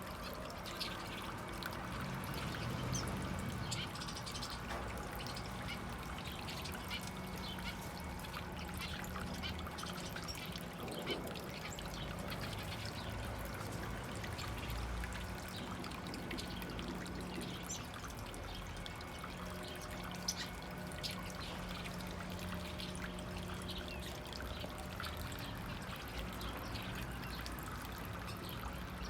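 Water trickling and pouring steadily where small birds are bathing, with scattered short chirps and splashes and a steady low hum underneath.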